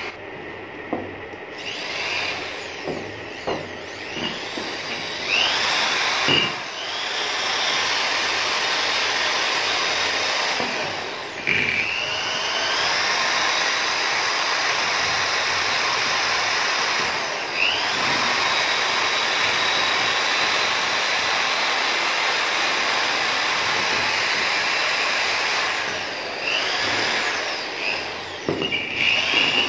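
Handheld electric drill working the aluminium brake plate of a motorbike front wheel hub, polishing the plate. It runs steadily under load with a few short stops, each restart marked by a rising whine as the motor spins back up.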